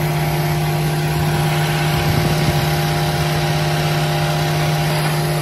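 Mazda3's four-cylinder engine idling steadily with the hood open, a constant even hum with the air-conditioning running.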